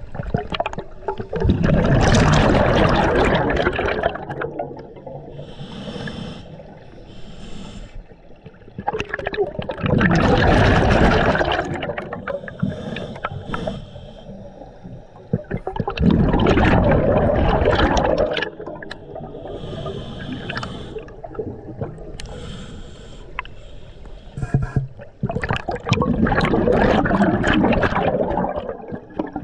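A scuba diver breathing underwater through a regulator: four loud bursts of exhaled bubbles about seven seconds apart, with quieter stretches between them as the diver inhales.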